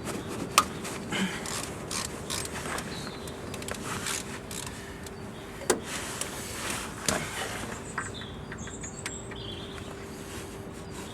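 Hand tools working on a pickup's front brake caliper: irregular sharp metallic clicks and knocks, a few louder single knocks among them, over a faint steady hum.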